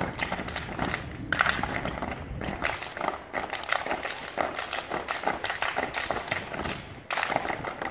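A step team stamping their feet on a concrete stage and clapping and slapping their hands and bodies: a quick, uneven run of sharp stomps and claps.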